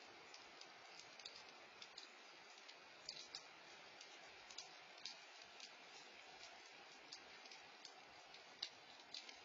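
Near silence: a faint steady hiss with small irregular clicks and ticks scattered through it.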